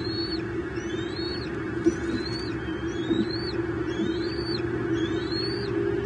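A songbird singing the same short whistled phrase over and over, about once a second, each phrase sliding up and then dropping, over a steady low hum. A brief knock sounds about two seconds in.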